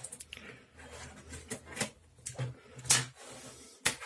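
A small cardboard box being handled and opened on a desk: light rustling with a few sharp taps and clicks.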